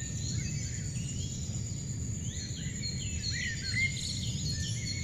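Forest ambience: birds chirping on and off over a steady high insect drone and a low rumble.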